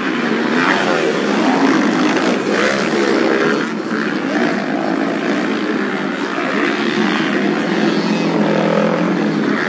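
Several dirt-bike racing motorcycle engines running hard together, their pitch rising and falling as the riders rev and shift.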